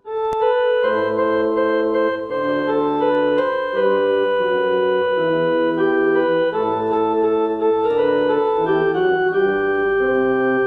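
Casio electronic keyboard on an organ tone, playing a slow hymn introduction: held chords over single bass notes, the chords changing every second or so.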